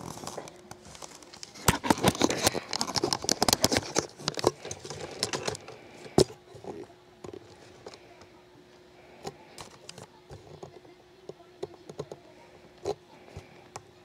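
Clicking and rustling of handling for the first few seconds, then a 20-inch Aerospeed box fan running with a steady low hum, with a few faint ticks.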